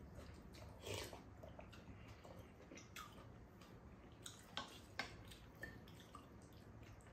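Quiet table eating: a few light clicks of spoons and chopsticks against bowls and a pan, spread through the stretch.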